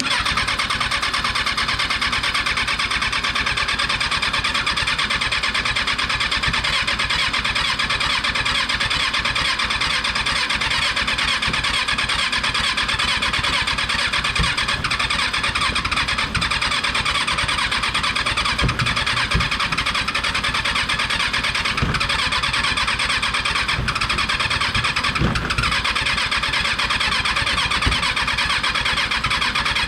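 Rebuilt Kawasaki 636 inline-four motorcycle engine being cranked over steadily by its starter, a fast even churning that does not catch and run.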